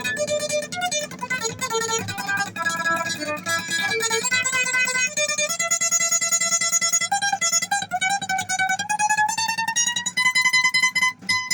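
Lead guitar solo in a heavy metal song: quick runs of single notes, then a long held note that slowly climbs in pitch over the last few seconds.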